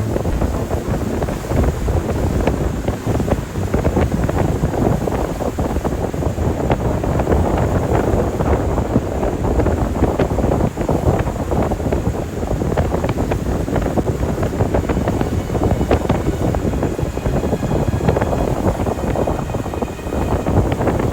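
Wind buffeting the microphone aboard a boat under way, a steady rough rush with a fluttering level and the noise of the boat's passage beneath it.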